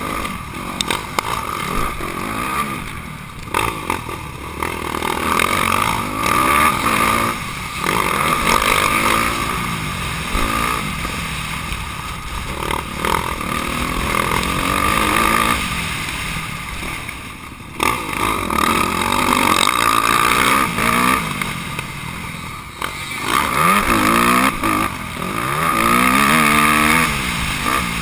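Honda CRF250R's single-cylinder four-stroke engine, heard from a camera mounted on the bike, racing hard around a motocross track. The revs rise and fall again and again as the throttle is opened and closed, with short dips every few seconds.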